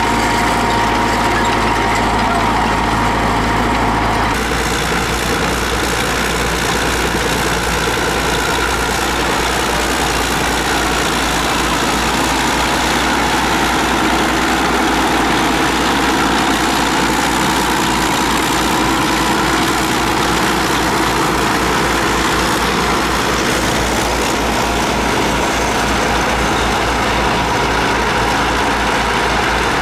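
Tractor engine running steadily, its note changing slightly about four seconds in.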